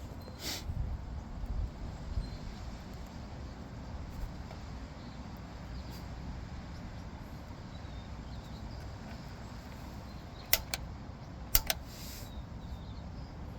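Two pairs of sharp clicks about a second apart near the end, from the piezo igniter on a gas water heater's pilot valve being pressed to spark the pilot, over a steady low background rumble.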